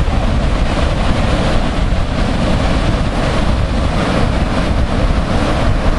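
Ocean surf breaking on a beach, heard through heavy wind noise buffeting the microphone: a steady, loud rush with no distinct events.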